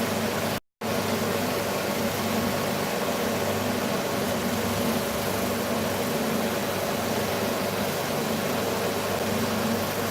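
Bobbin sander fitted with a 1.5-inch sanding drum, running steadily with a constant motor hum. The sound cuts out completely for a moment under a second in, then resumes unchanged.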